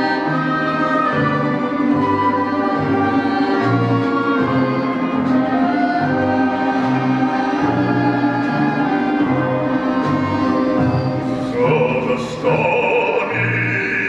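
Orchestra of Russian folk instruments, domras and balalaikas, playing with a plucked bass line beneath. About twelve seconds in, a brighter, higher part enters.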